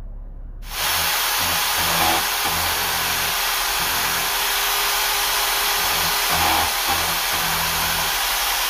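Electric drill in a homemade drill press running steadily while drilling into a thin wooden strip. It starts suddenly about a second in and stops abruptly near the end.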